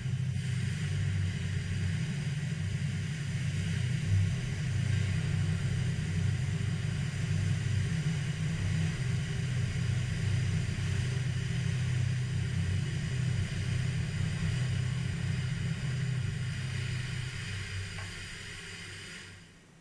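Large flames burning on a steel aircraft fire-training mockup: a steady low rumble with a hiss above it, fading away over the last couple of seconds.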